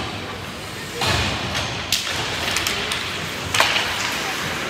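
Ice hockey play in a rink just after a faceoff: a noisy rush of play picks up about a second in, with two sharp knocks of stick and puck, the louder one about three and a half seconds in.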